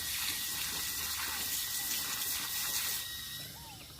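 Water running steadily, cutting off about three seconds in, with birds chirping.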